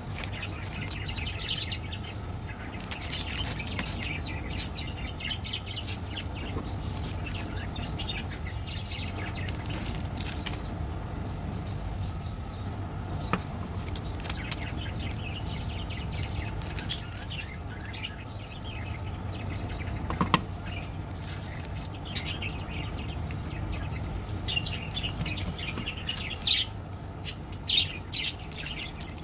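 Birds chirping in the background over a steady low hum, with plastic snack wrappers crinkling as chocolate bars are handled. A run of sharp crackles near the end comes as a wafer bar's wrapper is handled for opening.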